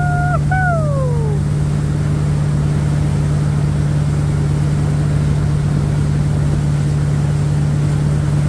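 Boat engine running steadily under way, with water rushing in the wake. Just after the start a high whine stops, returns briefly and falls away in pitch within the first second and a half.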